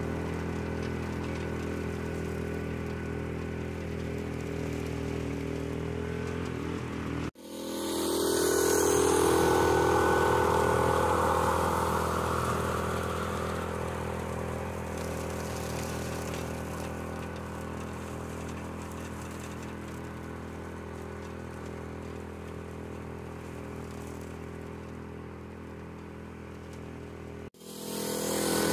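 18 hp Duromax 440 cc engine on a repowered Farmall H running steadily under load while the tractor pulls a bush hog rotary cutter through grass. The sound cuts out briefly twice, about seven seconds in and near the end. It is loudest just after the first break and then slowly fades.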